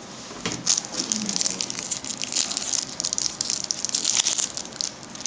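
Foil trading-card booster pack wrapper crinkling and crackling in the hands as it is worked open, a dense run of small crackles starting about half a second in.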